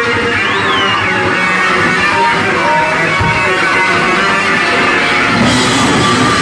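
Loud live noise rock: a heavily distorted bass guitar playing dense, droning riffs with gliding pitches. The sound turns brighter and harsher about five and a half seconds in.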